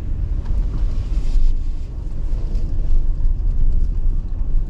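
A car driving slowly, giving a steady low rumble of engine and road noise.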